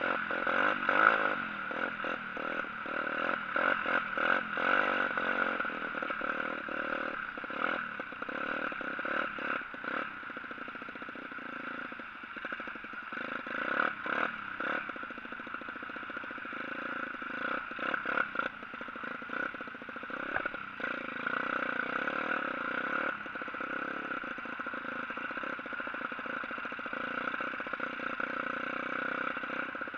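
Pit bike engine running at a steady pace while ridden over a snowy track, heard from onboard, with frequent rattling knocks as the bike goes over bumps.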